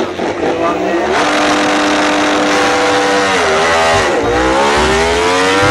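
Ducati Desmosedici MotoGP motorcycle's V4 engine revving, holding a high steady note, dipping about four seconds in, then rising in pitch as the bike accelerates away.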